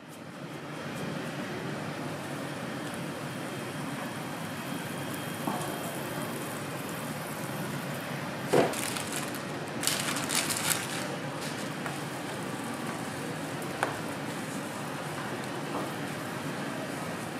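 A hot stainless flat-top griddle being scrubbed clean with a grill brick: a steady hiss and scraping. There is a sharp knock about eight and a half seconds in and a brief spatter of crackles around ten seconds.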